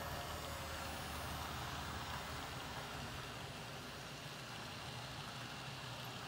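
N scale model train rolling past at close range: a steady whir of wheels on rail and running gear, easing slightly as the locomotives move off and the passenger cars go by.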